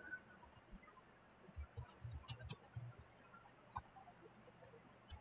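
Typing on a computer keyboard, faint: a few key taps, a brief pause, then a quick run of keystrokes about one and a half seconds in, followed by a few scattered taps.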